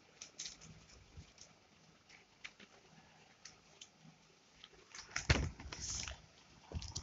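Drawing-book pages being handled and turned: soft scattered rustles and ticks, then a louder thump about five seconds in followed by a brief rustle.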